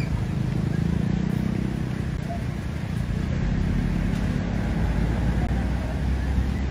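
Steady low rumbling noise of typhoon wind buffeting the microphone over flowing floodwater.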